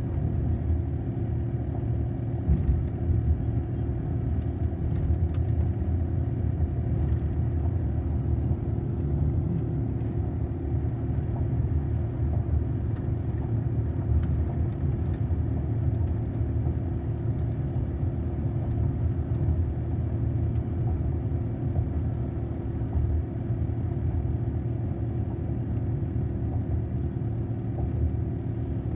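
Steady low rumble of road and engine noise heard inside a moving car's cabin, with a constant hum over it.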